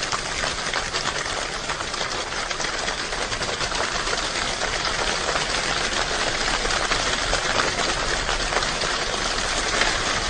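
Rain pattering steadily on a roof: a dense, even rush of countless rapid drop impacts.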